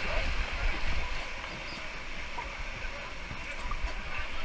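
Steady rushing of river whitewater, with wind buffeting the microphone in low rumbling gusts.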